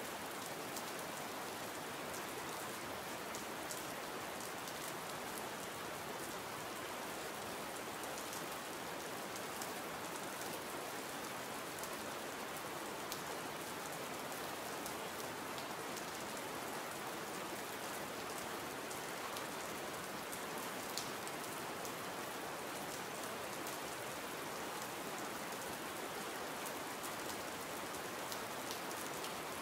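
Steady rain falling: an even hiss with scattered sharper drop ticks, one standing out about 21 seconds in.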